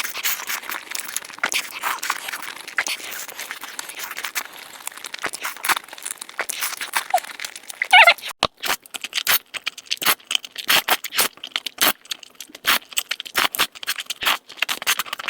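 Close-miked eating sounds: crunchy bites and chewing, a dense run of crackles and snaps, with a short squeak about eight seconds in.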